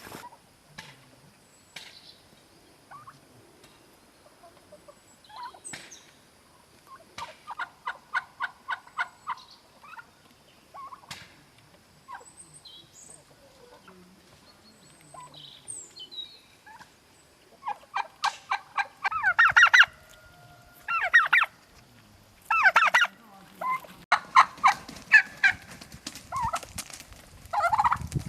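Turkey gobbling: several quick rattling gobbles, a softer one near the start, then louder, closer-spaced gobbles through the second half.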